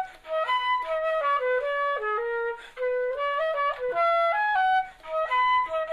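Background music: a single instrumental melody moving in stepwise notes, played in short phrases with brief gaps between them.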